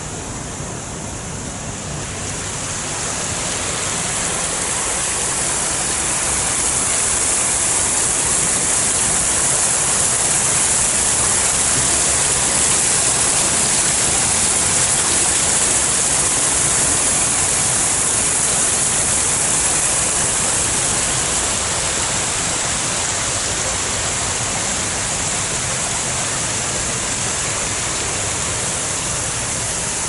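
Man-made waterfall pouring down a rock wall: a steady rush of falling water that grows louder over the first several seconds and eases slightly near the end.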